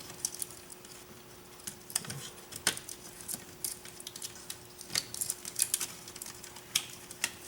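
Scattered light clicks and taps of small plastic parts and wiring being handled and pressed into place, over a faint steady hum.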